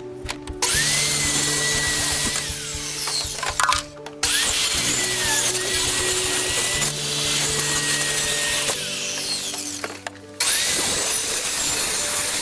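Power saw cutting marine plywood in three runs. Each run starts abruptly, its motor whine rising to a steady pitch, with short breaks between. Background music plays underneath.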